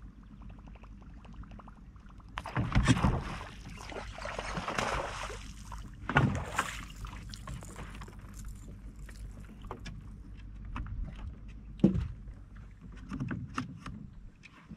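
A hooked bass splashing and thrashing at the water's surface beside the boat for a couple of seconds, with another splash about six seconds in. Then scattered clicks and a sharp knock near the end, over a low steady hum.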